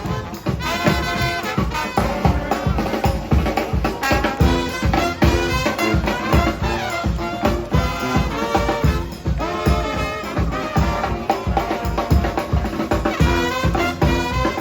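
Brass band playing live, with brass horns over a steady drum beat and low bass notes.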